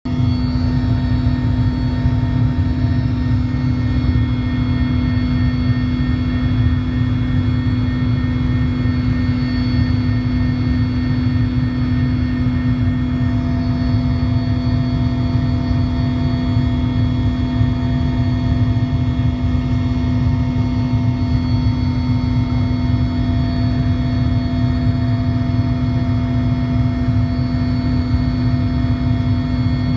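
Soviet-era Mil Mi-17 helicopter in cruise flight, heard from inside the passenger cabin: its twin turboshaft engines and rotor make a loud, steady drone with a deep rumble, a strong low hum, and several fixed higher whining tones.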